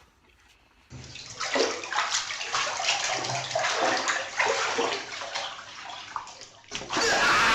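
Water splashing and sloshing in irregular bursts. Near the end it gives way to a louder, steady rush of noise.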